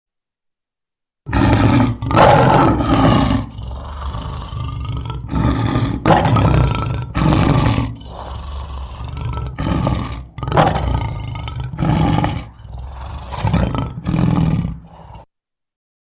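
A lion roaring: a run of loud roars separated by short gaps, starting about a second in and cutting off abruptly near the end.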